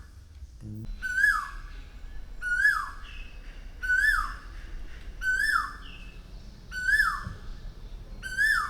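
A bird calling repeatedly: a clear, loud whistled note that rises briefly and then drops, given six times at an even pace of about one call every second and a half.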